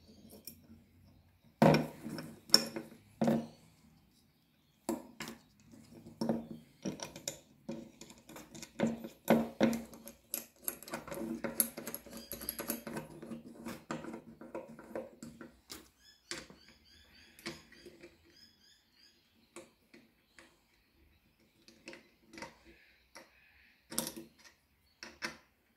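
Metal parts of a Tormek knife jig clicking and knocking as they are handled on a plastic mat while the clamp plate, spring and knob are taken off and fitted back. The loudest knocks come a couple of seconds in, with a denser clatter in the middle and a few sharper clicks near the end.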